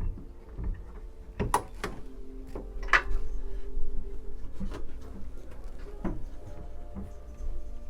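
A few sharp knocks and clunks over a low steady rumble, with steady tones underneath.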